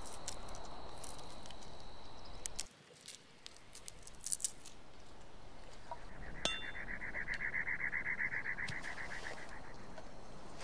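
Outdoor ambience with a few faint clicks, and an animal's rapid trill of about ten pulses a second lasting about three seconds in the second half.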